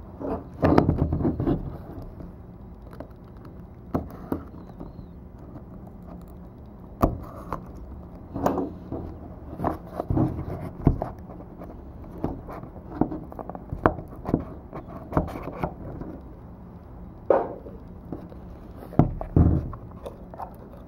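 Hands opening and unpacking a trading-card box: irregular handling sounds of cardboard and packaging being tapped, scraped and rustled, with a denser burst of handling about a second in, over a faint steady low hum.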